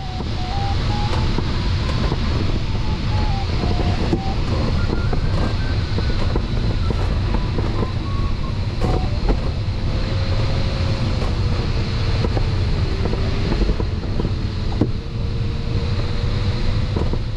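Air rushing past a glider's canopy in engineless flight, a steady loud rush. Over it runs a single thin electronic tone that steps up and down in pitch, typical of a variometer following rising and sinking air as the glider circles.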